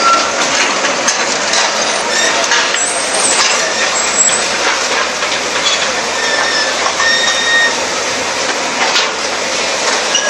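Bulldozer demolishing buildings: a steady crunching, clattering din of breaking structure, with a few brief high metallic squeaks.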